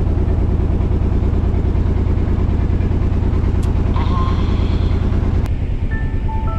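Wooden river boat's inboard engine running steadily, heard on board as a deep even hum with a fast pulse. About five and a half seconds in, the engine sound drops and light background music begins.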